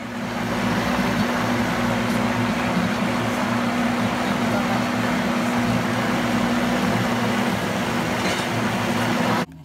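Vitamix blender running steadily while puréeing carrot soup: a loud, even motor-and-blade noise with a low hum underneath. It builds up in the first half-second and cuts off suddenly near the end.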